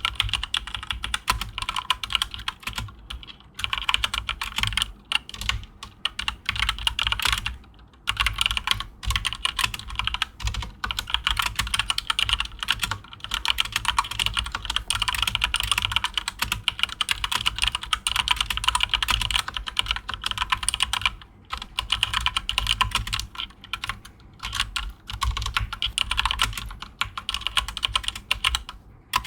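Fast, continuous typing on a keyboard fitted with Mario keycaps: a steady stream of key clacks broken by a few short pauses.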